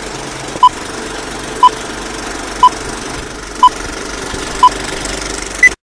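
Vintage film countdown leader sound effect: a steady film-projector clatter with a short beep once a second, six in all, then a single higher-pitched beep. Then the sound cuts off abruptly.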